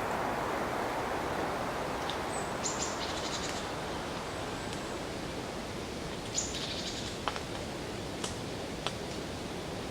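Autumn forest ambience: a steady, even rush in the background with two short bursts of rapid high bird calls, about three seconds in and again past the middle, then a few sharp single ticks near the end.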